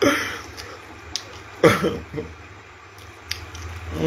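A man's voice in two brief bursts, the first right at the start and the second about a second and a half later, with quiet room tone and a faint low hum between.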